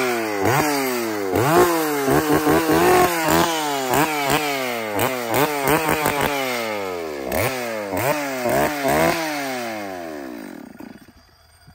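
STIHL 034 two-stroke chainsaw, fitted as a horror-film prop replica with a long decorated bar, being revved over and over in quick blips, each rise in pitch sagging back. Near the end it winds down and dies away.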